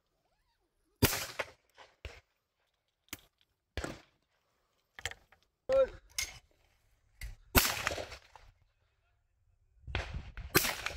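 Shotgun shots from a Beretta 686 over-and-under at clay targets: loud single cracks about a second in, about seven and a half seconds in and near the end, with several quieter cracks between, in short separate bursts of sound.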